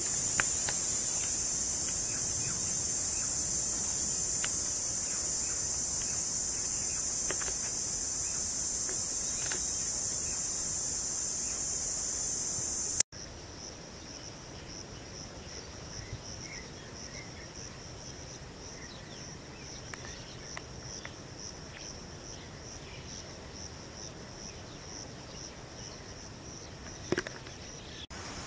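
Insects calling: a loud, steady, high-pitched drone, then after a sudden cut a quieter high chirping that pulses about twice a second.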